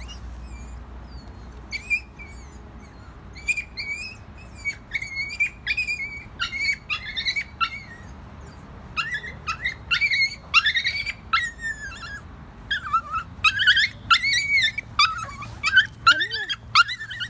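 Small dog yelping and whining in a long run of short, high-pitched cries that come thicker and louder from about nine seconds in: the distress of a rescued dog in an anxiety attack.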